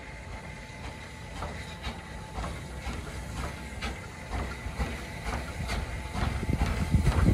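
Southern Railway S15 class 4-6-0 steam locomotive No. 847 pulling away, its exhaust chuffs coming steadily faster and louder, with steam hissing from its open cylinder drain cocks.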